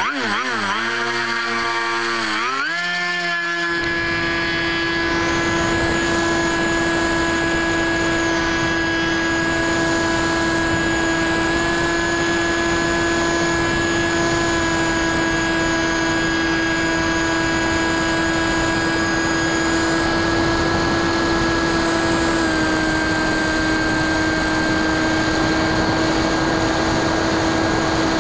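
The Bixler 2's brushless outrunner motor (NTM Prop Drive 35-30 1400kv) spinning a 9x6 propeller, heard through the plane's onboard camera. Its whine dips and rises in pitch several times over the first three seconds at launch, then holds a steady high-throttle whine with wind rush as the plane climbs, stepping slightly lower in pitch about three-quarters of the way through.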